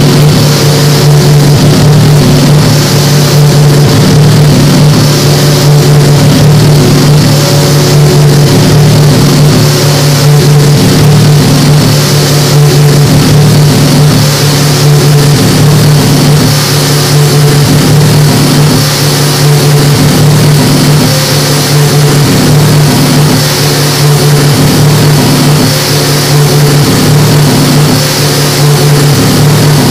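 Loud electronic drone from a live electronics rig played through speakers: steady low hum tones under a dense, hissing noise wash that swells and ebbs, with no beat.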